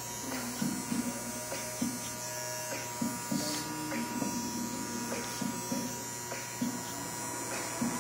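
Andis Master electric hair clipper buzzing steadily as its blade cuts short hair at the back of the neck.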